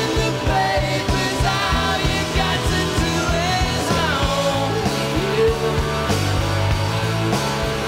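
Britpop rock band playing live: electric guitars, bass and drums on a steady beat, with a male lead vocal, from a professionally recorded mix.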